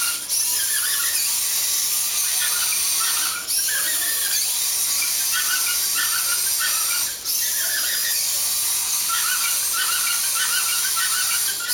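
Small electric gear motors of a homemade Roomba-like table-top robot whining as it drives, a high hiss with a wavering whine. The sound dips briefly three times, about a third of a second, three and a half and seven seconds in.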